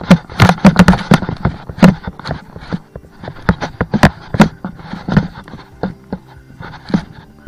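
Footsteps of a hiker walking a trail, close to the microphone: an uneven run of sharp crunches and knocks, several a second, some with a dull thud beneath.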